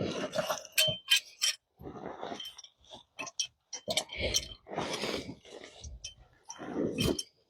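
Hand tools clicking and clinking at irregular moments, with short bursts of rustling handling noise.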